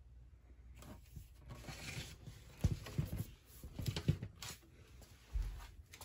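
Handling noise from a plastic box fan housing being moved and set down on a table: rustling and scraping with several dull knocks, the heaviest thud about five and a half seconds in.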